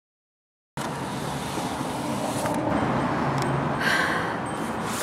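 Dead silence for under a second, then a steady rushing background noise with a low hum underneath.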